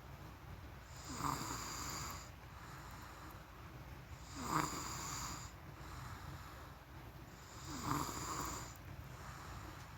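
A sleeping person snoring, three snores at an even pace about three seconds apart.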